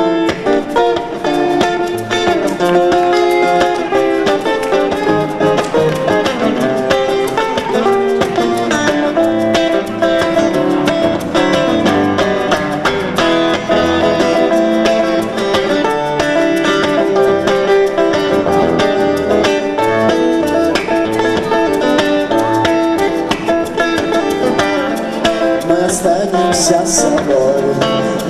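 Live rock band playing an instrumental passage, an electric guitar carrying melody lines over the steady beat of the band. A few short high rattles near the end.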